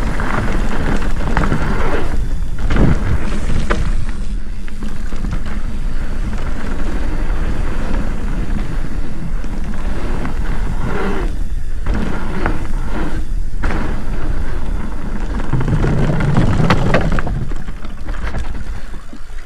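Mountain bike riding fast down a dirt flow trail: wind buffeting the microphone over the rumble of knobby tyres, with scattered knocks and rattles as the bike hits bumps. The rush fades near the end.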